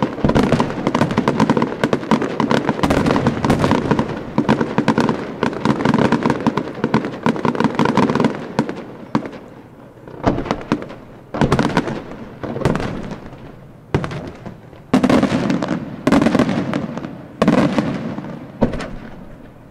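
Aerial fireworks display: a dense, rapid barrage of bangs and crackle for the first eight seconds or so, then a string of separate shell bursts about a second apart, each bang dying away in an echo.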